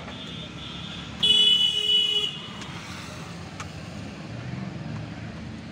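A vehicle horn honks once, a single held note of about a second, loudly, about a second in, over a steady low background rumble of street noise.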